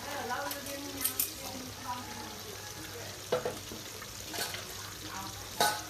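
Food sizzling in a pan with a steady hiss, broken by several sharp clicks of a utensil against the pan, the loudest near the end. Faint voices are heard near the start.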